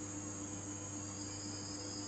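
Night insects trilling steadily: one high continuous trill, with a second, slightly lower trill joining about a second in, over a steady low hum.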